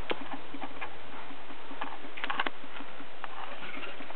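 Scattered light clicks and taps over a steady hiss, with a cluster of taps a little past two seconds and a low hum during the first half: handling noise from a handheld camera.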